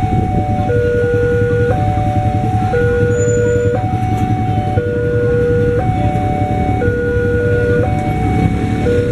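Railway level-crossing warning alarm from the pole-mounted loudspeaker, a repeating two-tone electronic signal that switches between a higher and a lower tone about once a second, warning of an approaching train. Underneath it runs the steady low rumble of idling motorcycle engines waiting at the crossing.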